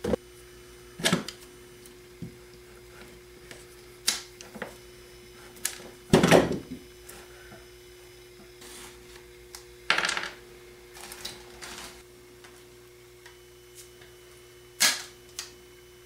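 Hand tools and a cut extension cord being handled on a plywood workbench while wire ends are stripped: scattered separate clicks and knocks a second or more apart, the loudest and longest about six seconds in. A faint steady hum runs underneath.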